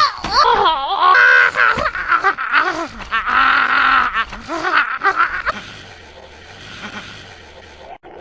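High-pitched, squeaky cartoon character voice squealing and yelping in short, choppy bursts without words. About five and a half seconds in it drops to a faint hiss.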